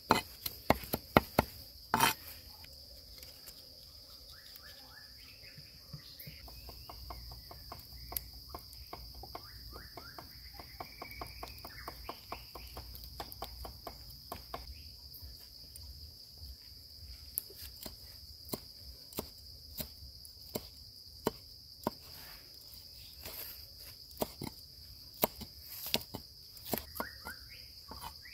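Steady, high-pitched drone of jungle insects such as crickets. Over it, a quick run of sharp knocks like chopping on a board ends with one loud knock about two seconds in. Scattered single knocks and a few faint rising chirps follow later.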